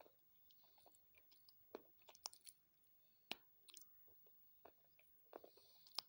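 Close-miked crunching: quiet, irregular crisp crunches and clicks with short gaps between them, a few of them sharper than the rest.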